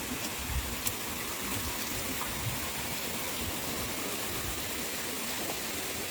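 Steady rushing of a waterfall: an even hiss of falling water, with a single sharp click about a second in.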